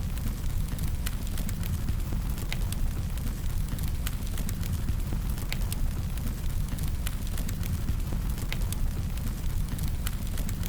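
Burning-fire sound effect: a steady low rumble of flames with irregular sharp crackles and pops scattered throughout.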